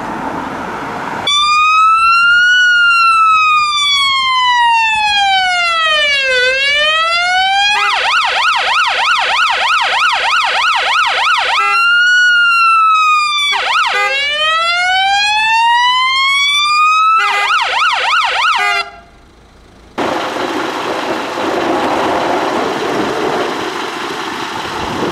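Fire engine's electronic siren. It starts in a slow wail rising and falling, switches to a fast yelp about eight seconds in, and goes back to the wail. A short yelp follows before it cuts off suddenly. After about a second's gap comes a rumble of engine and road noise.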